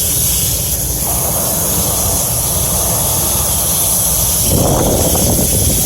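Steady hissing spray against an HVAC unit's condenser coil as it is cleaned, over a constant low rumble; the spray noise strengthens about a second in and again near the end.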